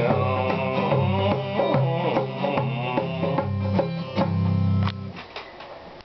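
Acoustic guitar strummed in steady chords with repeated bass notes; the playing stops about five seconds in, followed by a few light clicks.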